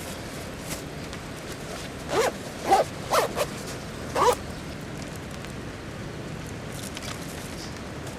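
A zipper pulled in four or five quick, short strokes, its pitch sliding with each pull, over the steady hiss of rain.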